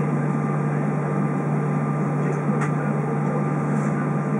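Steady cabin noise inside a taxiing Airbus A320: engines at idle and air-conditioning rush, with a strong low steady hum. A faint click a little past halfway.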